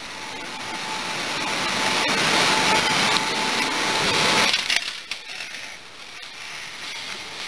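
Steady rushing air noise with a faint hum, swelling for about four seconds and then dropping off sharply as the doorway is passed, with a few small clicks afterwards.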